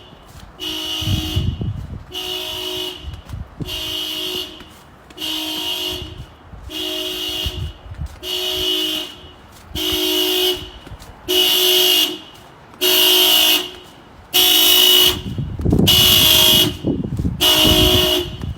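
Car alarm blowing the car's horn in a steady repeating pattern, one honk about every second and a half, each just under a second long. The honks grow louder toward the end.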